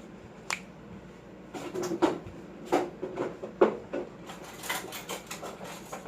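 Several sharp knocks and clinks of kitchenware being handled and set down, spaced irregularly across a few seconds.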